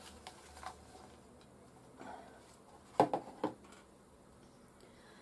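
Handling noise as a name slip is drawn from a clear plastic tub and unrolled: a few faint clicks and light rustles, with two sharp clicks close together about three seconds in.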